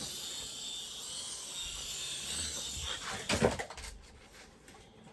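Small toy UFO helicopter's electric rotors spinning with a steady high whir, dying away about three seconds in, followed by a brief clatter.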